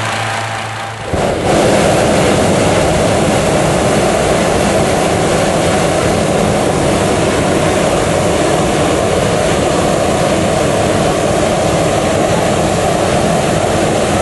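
Hot-air balloon's propane burner firing, a loud steady rush that cuts in about a second in and holds without a break, heating the air to stand the envelope up. Before it an engine runs with a steady hum.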